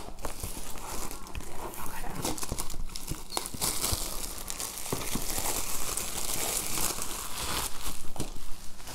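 Plastic wrapping crinkling and tearing as it is pulled off a cardboard box, with scattered light taps and clicks, busiest in the second half.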